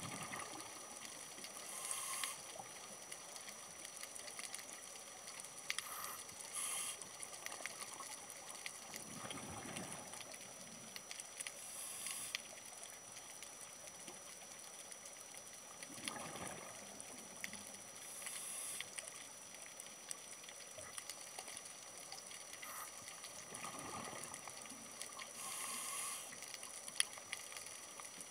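Scuba diver breathing through a regulator underwater: a hiss of breath and a swell of exhaled bubbles come round every few seconds over faint, steady crackling.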